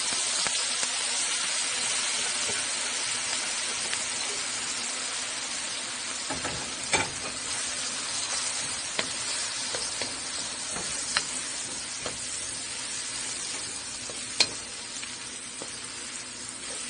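Chopped mixed vegetables frying in hot oil and curry powder in a pot: a steady sizzle that slowly dies down as they cook, while a slotted wooden spatula stirs them, knocking against the pot a few times.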